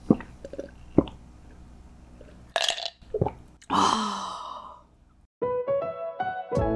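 A few soft mouth clicks, then a long breathy sigh about four seconds in, fading out over about a second. Plucked-string music starts about a second later.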